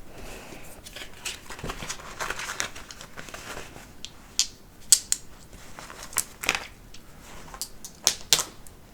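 Packaging being handled: rustling and crinkling, then a run of sharp clicks and taps in the second half.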